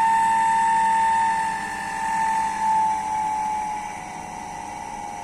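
Three-phase induction motor running on single-phase power through a speed regulator, giving a steady high whine. From about a second and a half in, the whine slides lower in pitch and gets quieter as the motor is turned down to a slower speed.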